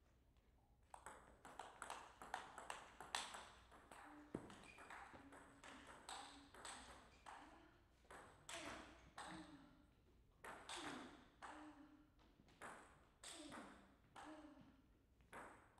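Quiet table tennis ball clicks: a long run of short sharp knocks of the ball on table and bats, about one every half second, each with a brief ringing ping.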